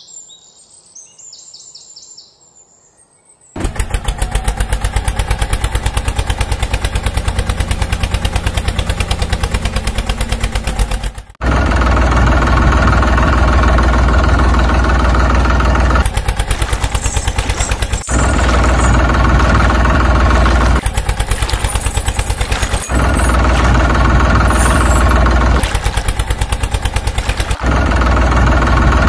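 Tractor engine sound, a loud rapid chugging that starts about three and a half seconds in and breaks off briefly several times. Before it, a few faint high chirps.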